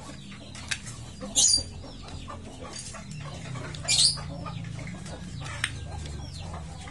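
A few light clicks from a motorcycle clutch pack of friction plates and steel rings being handled in the hands, over a steady low hum. Short high bird calls sound twice.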